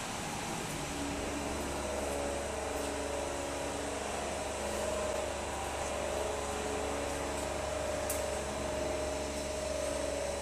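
Single-head UPVC window welding machine running during a corner weld: a steady low hum starts about a second in, with faint tones coming and going above it. A short hiss comes about eight seconds in.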